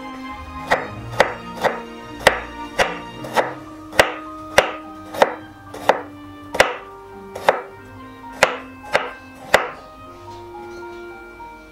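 Chef's knife chopping fresh ginger on a wooden cutting board: sharp knocks of the blade on the board at about two a second, stopping near the end.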